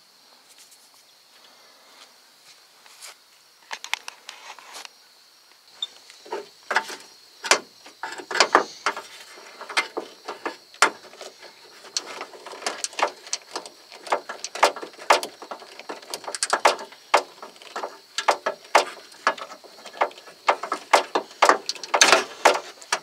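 Irregular crackling, clicking and ripping of a truck door's wiring harness being handled and rewrapped with electrical tape, starting a few seconds in and continuing in quick uneven bursts, with a faint steady high tone underneath.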